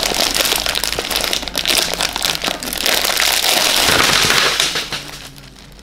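Shiny plastic candy wrapper being opened by hand, crinkling and crackling loudly, dying down near the end.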